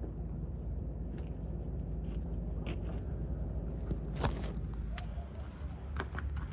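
Small clicks and scrapes close to the microphone over a low steady rumble, with a sharp knock about four seconds in as the phone is picked up and moved.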